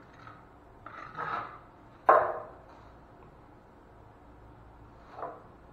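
Short rubbing strokes of a cloth wiping a glass shower door, with a single sharp knock about two seconds in, the loudest sound, and a smaller one near the end.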